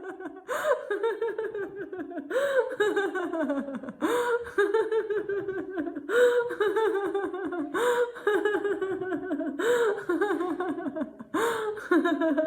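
A woman laughing heartily and continuously in deliberate laughter-yoga laughter, in rapid 'ha-ha' pulses. The laughter comes in bouts about every two seconds, each starting with a sharp, gasping in-breath.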